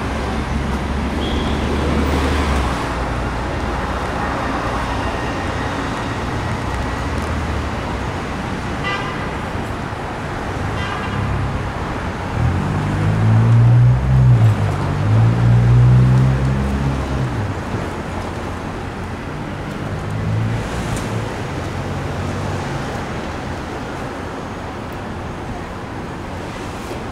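Street traffic: cars passing with steady road noise. About halfway through, a louder low-pitched engine sound from a passing vehicle swells for a few seconds, then fades.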